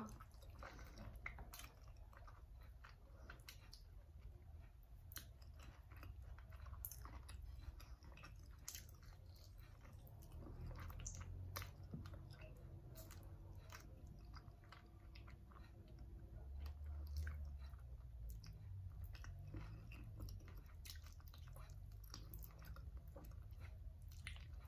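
Quiet close-up chewing and biting of chicken feet braised in coconut milk, with many small wet mouth clicks and smacks throughout.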